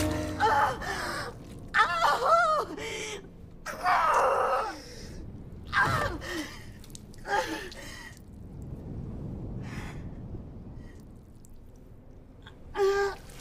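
A woman crying out and groaning in labour pain, in short strained bursts with gasping breaths between. A few quieter seconds come before one more cry near the end.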